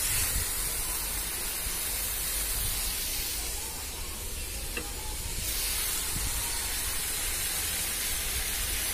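Hot oil and onion-spice masala sizzling steadily in a frying pan as pieces of fried rohu fish are lifted out with a spatula to drain. A single light click sounds about five seconds in.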